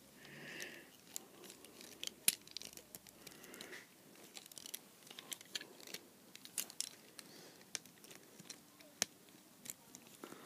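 Faint, irregular small clicks and taps of a plastic Transformers Generations Sandstorm action figure being handled, its parts being pushed to tab and peg into place.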